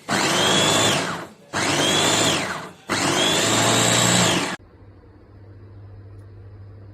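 Electric food chopper's motor run in three short pulses of about a second each, each one spinning up and winding down. After about four and a half seconds it stops, leaving a faint low hum.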